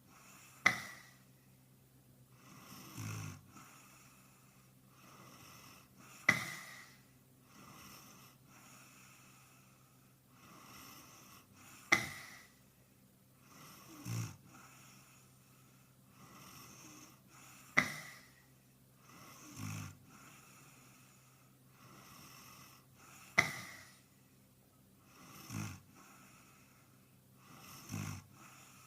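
A sleeping person snoring in a steady rhythm, sped up and pitched up: five loud, sharp snores about five and a half seconds apart, each followed a couple of seconds later by a softer, lower one.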